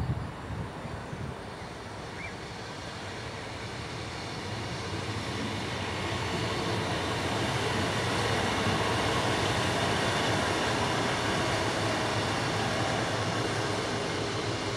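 Class 66 diesel locomotive hauling a freight train as it approaches, its engine and wheel noise growing louder over a few seconds and then holding steady.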